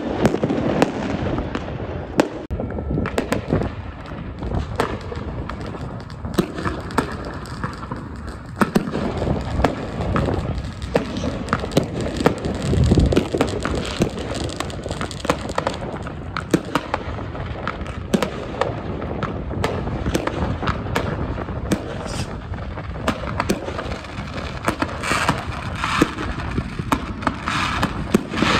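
Many fireworks going off at once, rockets, battery cakes and firecrackers: a dense, continuous run of bangs and crackles over a steady low rumble, with a heavier boom about halfway through.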